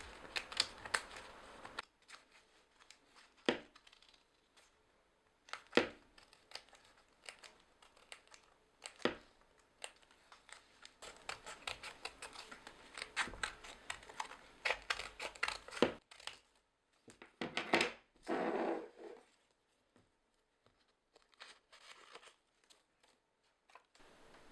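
Paper being cut and handled for a papercut: scattered short snips and crinkles, with a longer rustle of paper about eighteen seconds in.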